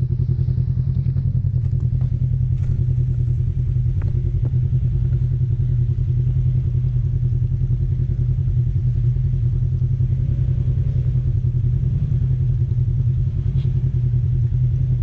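Polaris RZR side-by-side's engine running at a steady idle, a low even drone with no revving, with a few faint clicks over it.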